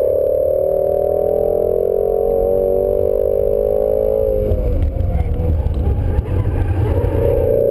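Ford Shelby GT350's 5.2-litre flat-plane-crank V8, heard from inside the cabin, pulling under hard acceleration with a slowly rising pitch. About four seconds in, the note breaks off as the car lifts and brakes for the next corner, and the engine goes lower and rougher. Near the end the engine note climbs again, over a steady rumble of road and wind noise.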